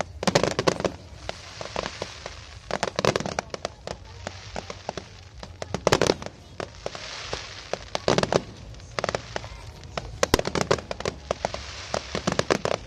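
Fireworks going off: clusters of sharp bangs about every two to three seconds, with crackling between them.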